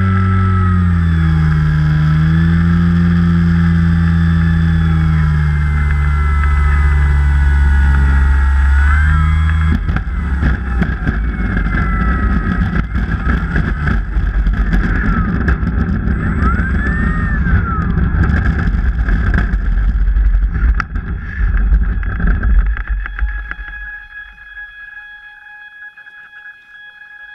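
E-flite Carbon-Z Cub's brushless electric motor and propeller running, its pitch rising and falling with the throttle. The motor cuts off suddenly about ten seconds in. Rough noise of the airframe rolling over grass follows, and the sound drops off near the end.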